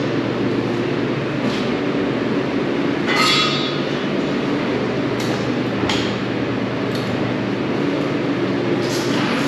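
Steady machinery hum with scattered metallic knocks and clinks, the loudest about three seconds in with a brief ring.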